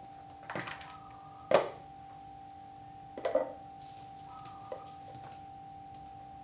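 Kitchen knife striking a wooden cutting board while vegetables are chopped: a few sharp knocks, the loudest about a second and a half in, a short cluster just after three seconds and a light tap near five seconds. A steady faint hum runs underneath.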